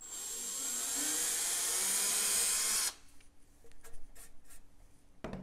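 Cordless drill with a 1/4-inch bit boring a pilot hole through 5/8-inch drywall, its motor whine rising slightly for about three seconds before it stops abruptly. Faint light ticks and rubbing follow.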